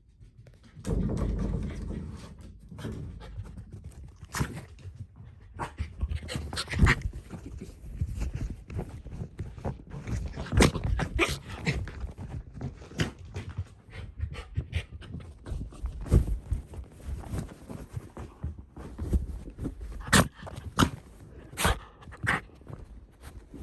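Shiba Inu panting and moving about excitedly, with many sharp clicks and taps throughout and a low rumble about a second in.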